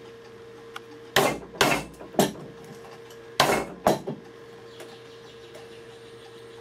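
Wood chisel being struck to chop a mortise into a solid wood stool seat: six sharp knocks in two groups of three, the second group about a second after the first.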